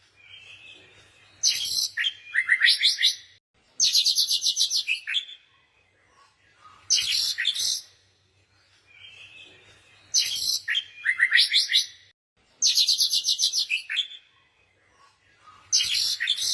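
Songbirds chirping in short bursts of rapid, high-pitched trills, with brief pauses between phrases; the same pattern of phrases comes round again about every nine seconds.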